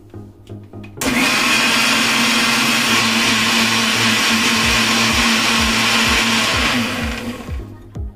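Electric mixer grinder blending mango with milk and sugar: it switches on abruptly about a second in, runs loud and steady with a constant motor hum, then is switched off and winds down near the end.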